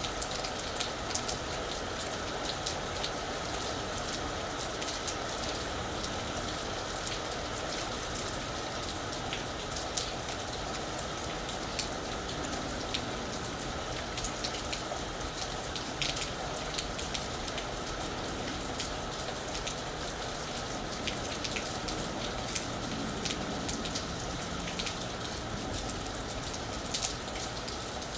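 Steady rain falling on a roof, an even hiss with many sharp individual drop ticks scattered through it.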